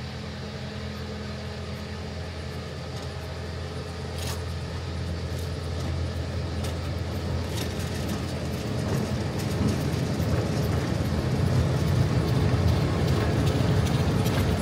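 A miniature railway locomotive's engine running steadily and growing louder as it draws near, with scattered sharp clicks over it.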